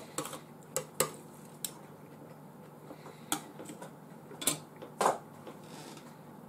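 Cutlery clinking against a dish during eating: about six short, sharp clicks at irregular intervals, the last two the loudest.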